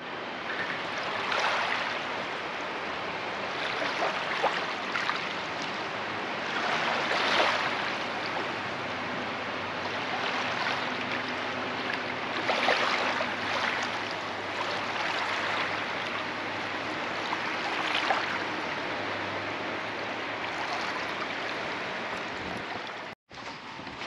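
Small sea waves washing onto the shore, each wash swelling and dying away every two to three seconds.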